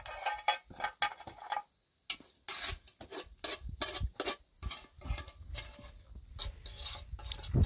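Irregular clatter and scraping of things being handled, a quick run of short knocks and scrapes, with a low rumble joining in over the last few seconds.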